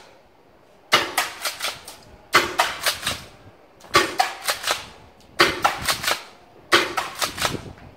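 Secutor Velites gas airsoft shotgun firing five shots in quick succession, about one every second and a half. Each is a sharp crack followed by a rapid patter of clicks as the BB spread strikes the target.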